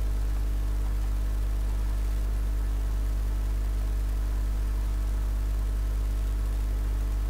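Steady electrical mains hum with its stack of overtones, a constant low buzz that does not change.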